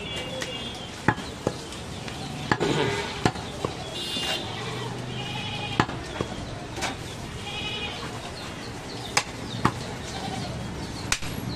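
A heavy cleaver chops goat meat and bone on a wooden log chopping block, in sharp single strikes at irregular intervals. Goats bleat in the background several times, each call wavering.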